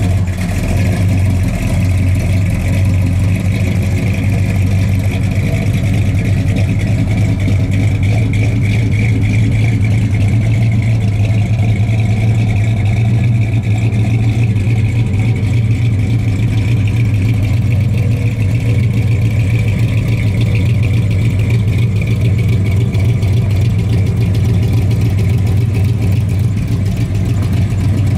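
Buick Electra 225's V8 engine idling steadily.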